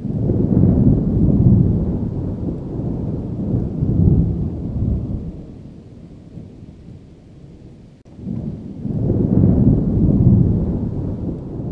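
Deep, rolling storm rumble that swells and fades in long waves, cut off abruptly about eight seconds in and followed by a second swell.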